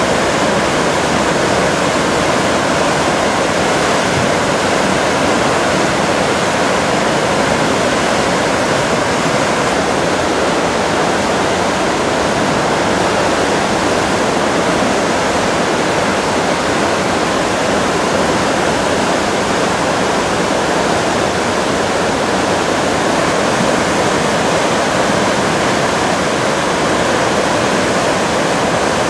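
A river in flood, swollen by days of heavy rain: fast, muddy floodwater rushing and churning in a loud, steady, unbroken roar of water.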